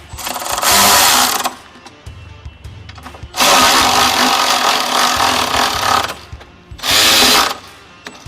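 Electric ratchet with a 14 mm socket running in three bursts, a short one, a longer run of about two and a half seconds, then a brief one, tightening the tow hitch's bolts.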